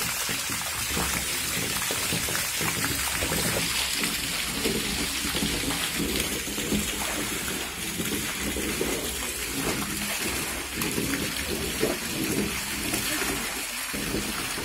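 Sugarcane juice gushing from a pipe into a wide jaggery-boiling pan, splashing and frothing on the pooled juice with a steady rain-like rush.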